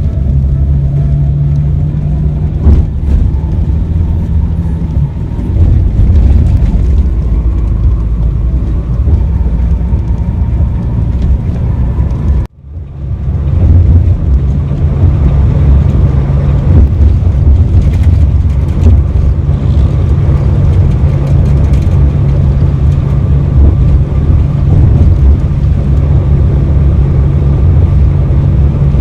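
Bus engine running steadily with a low drone and road noise. The sound cuts out abruptly for about a second near the middle, then comes back at the same level.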